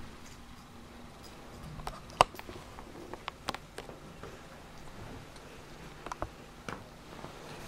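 Small dog tussling with a plush otter toy on a bedspread: scattered light taps, rustles and clicks, with one sharp click about two seconds in.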